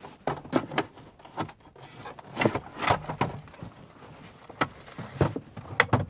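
Hollow plastic clunks, knocks and scrapes as a folding portable camp toilet is set down into a plywood box over a bucket: a string of irregular short knocks, the loudest near the end.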